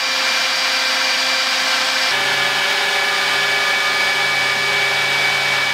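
Handheld leaf blower running steadily, a rushing air noise with a whine on top. About two seconds in, the pitch of the whine shifts abruptly.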